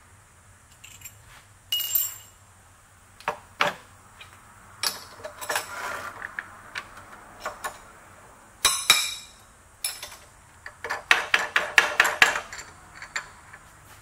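Steel tools and vise parts clinking and knocking against a milling vise and rotary table: scattered sharp metal knocks, then a quick run of about a dozen light taps near the end.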